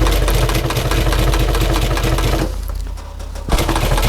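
Sewing machine running and stitching, the needle striking rapidly over a steady motor hum; the stitching stops for about a second around three seconds in, then starts again.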